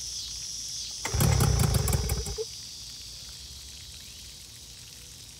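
One pull on the recoil starter cord of a Hangkai 12 hp two-stroke outboard: the engine cranks over with a short rattling rumble for about a second and a half, about a second in, and does not catch. Water from the cooling hose hisses steadily throughout.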